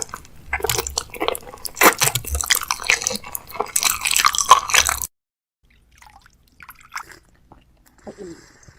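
Rapid crinkling and clicking of packaging and containers being handled and set in place while restocking a fridge. It cuts off suddenly about five seconds in, leaving only a few faint taps.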